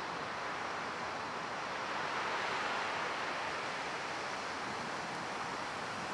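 Steady wind rushing through trees ahead of a thunderstorm, swelling slightly a couple of seconds in.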